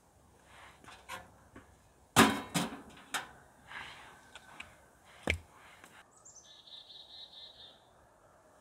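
A few knocks and clatters of things being handled, the loudest about two seconds in. Then a short high bird call of a few falling notes and a warble.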